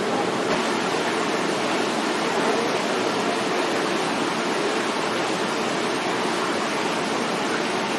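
Steady rush of running water from a garden water feature, unchanging throughout.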